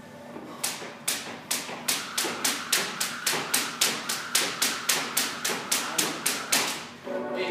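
Speed jump rope striking the gym floor in a fast, even run of sharp slaps, about four a second, during a set of double-unders. The slapping starts about half a second in and stops abruptly near the end as the set finishes.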